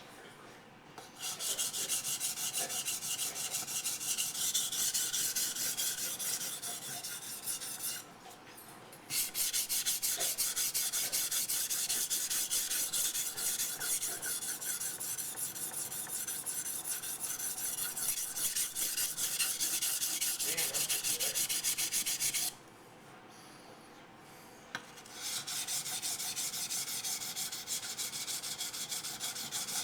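Steel blade of a large Becker BK9 knife stroked rapidly back and forth on a bench waterstone, a steady gritty rasp. It comes in three long runs, with short pauses about 8 seconds in and again at about 22 to 25 seconds.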